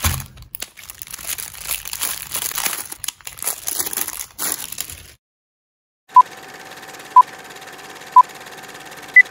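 Plastic wrap crinkling as hands peel it off spools of cotton fabric yarn, for about five seconds. After a second of silence comes a film countdown leader: a steady hum with three short beeps a second apart, then one higher beep.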